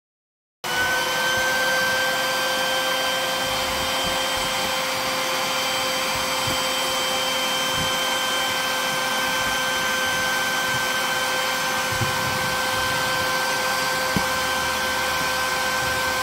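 Shop vac running steadily and noisily, its hose nozzle sucking dirt out of a floor vent duct. It cuts in abruptly just under a second in, a steady whine over rushing air.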